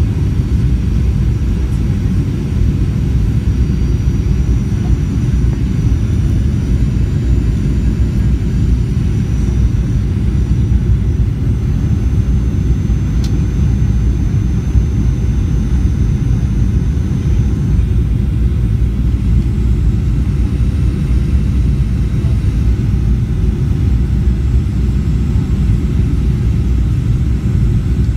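Steady low rumble of a Boeing 737 airliner in flight, heard from inside the passenger cabin: engine and airflow noise during the descent, with a faint high-pitched whine above it.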